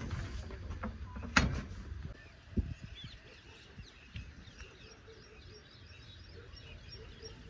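Faint birds chirping in short rising calls over a quiet background, with a sharp knock about a second and a half in and a dull thump about a second later.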